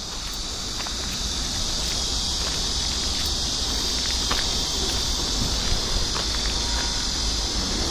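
A steady, unbroken chorus of insects, fading up over the first couple of seconds, over a low rumble.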